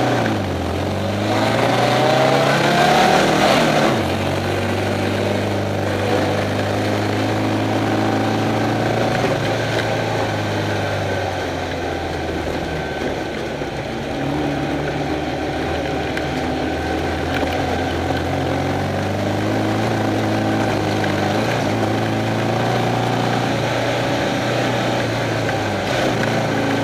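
Off-road race car engine pulling hard, heard from inside the car. Its pitch climbs for the first few seconds and drops sharply about four seconds in, as at a gear change. It then runs at a fairly even speed with slower rises and falls, over a steady rushing noise.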